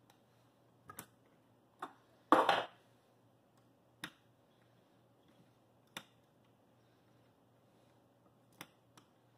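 Sparse metallic clicks and ticks of a T-handle hex key working small screws on a telescope mount's worm-gear housing, with one short, louder clatter about two and a half seconds in.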